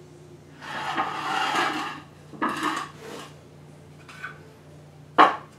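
Wooden blocks scraped and shoved along a concrete floor as they are set under a jet engine casing. A long scrape is followed by two shorter ones, and a single sharp wooden knock comes near the end.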